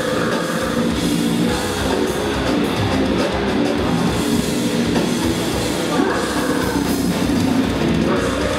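A rock band playing live at full volume: distorted electric guitars and a drum kit, in a loud, dense wall of sound.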